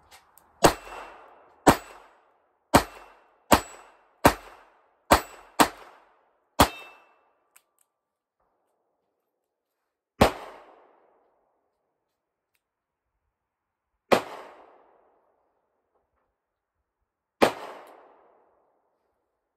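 Ruger LCR .22 LR revolver firing Winchester Super X bulk .22 LR rounds: eight sharp shots in quick succession over about six seconds, emptying the 8-shot cylinder. Then three more single gunshots several seconds apart.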